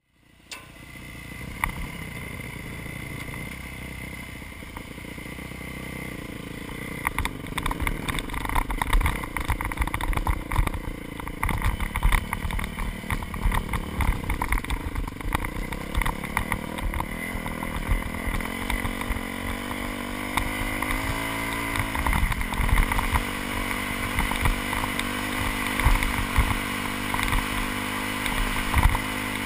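Yamaha YZ426F's four-stroke single-cylinder engine running under way off-road, its pitch rising and falling with the throttle and gear changes. Wind buffeting and bumps thump on the helmet-mounted microphone.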